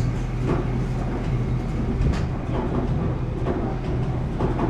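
Steady low hum and rumble of driving-range background noise, with a few faint clicks scattered through it.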